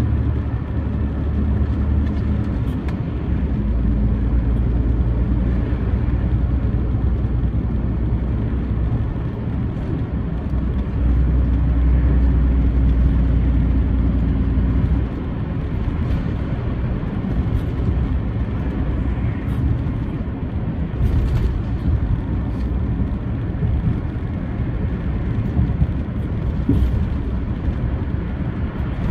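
Truck engine and road noise heard from inside the cab while driving, a steady low drone whose pitch shifts a few times. It grows louder for a few seconds around the middle and then drops back suddenly.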